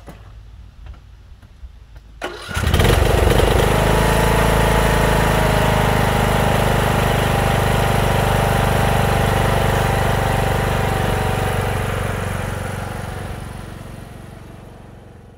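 17.5 hp single-cylinder Briggs & Stratton riding-mower engine, with a freshly replaced camshaft, starting up about two seconds in and running steadily, then fading near the end as the mower drives away.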